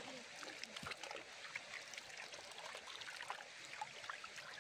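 Water splashing and trickling in a metal pot as a young green pumpkin is washed by hand, with small irregular drips and patters.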